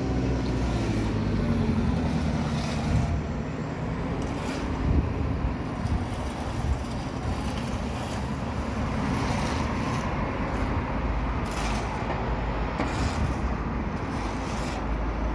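Heavy vehicle engine running steadily at a roadworks site, with a few sharp knocks scattered through.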